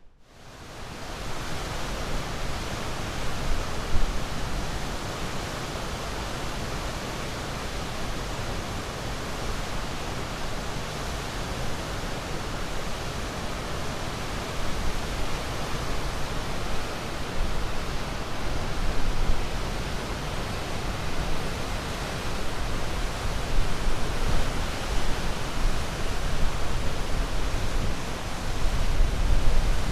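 Ocean surf: a continuous wash of breaking waves with a deep low rumble and slow surges in loudness. It fades in over the first second or two.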